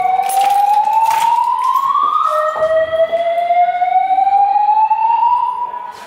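EST Genesis fire alarm speaker strobes sounding the slow-whoop evacuation tone. One long rising sweep climbs until about two seconds in and breaks off; a new sweep starts low a moment later and climbs until it cuts off at the end.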